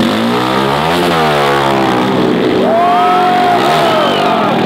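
TVS Apache stunt motorcycle engine revving, its pitch rising and falling about a second in, with whistling from the crowd over it in the second half.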